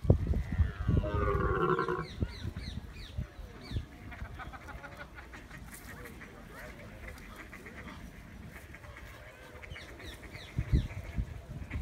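Waterfowl calling on a pond: a loud burst of overlapping honking calls in the first two seconds, then scattered fainter calls. Low rumbles of wind on the microphone come at the start and again near the end.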